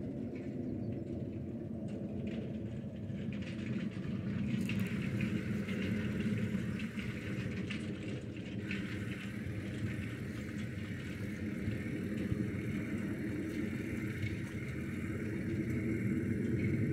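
A steady low rumble with a fainter hiss above it, growing a little louder about four seconds in.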